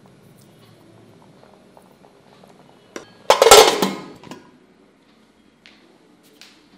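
Stainless steel pressure cooker lid clanking as it is set on the cooker and closed: a sharp click about three seconds in, then a loud metal clatter that lasts about a second and rings out. Faint clicks follow near the end.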